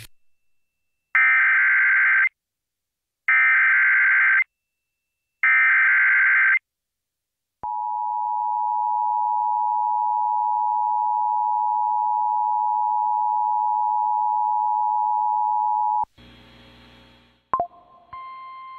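Emergency Alert System activation on a radio broadcast: three short bursts of the digital SAME header, each about a second long, then the two-tone attention signal held steady for about eight seconds. It opens a National Weather Service tornado warning. The attention tone cuts off into a brief crackle and a click, and a different steady tone starts near the end.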